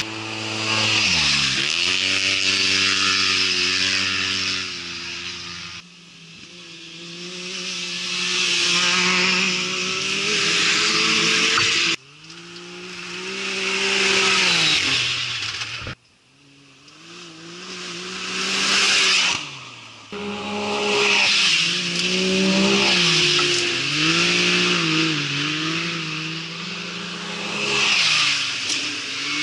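Side-by-side racing buggies' engines revving hard as they pass on a dirt track, the pitch climbing and dropping again and again with throttle and gear changes, over a steady hiss. The sound breaks off abruptly and restarts every four to six seconds as one pass gives way to the next.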